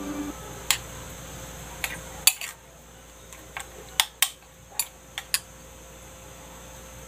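A metal spoon clinking against a ceramic bowl while stirring a wet egg-and-shrimp mixture: about nine sharp, irregular clinks spread over several seconds.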